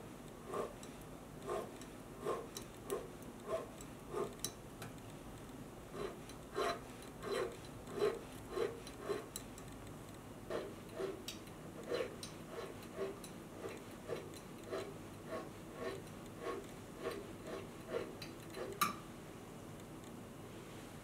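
Needle file rasping on the small metal bail of a jade pendant in short strokes, about two a second, with a sharper click just before the filing stops near the end.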